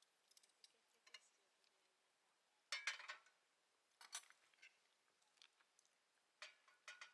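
Near silence broken by a few short clinks of cutlery and dishes: the loudest about three seconds in, another a second later, and a cluster near the end.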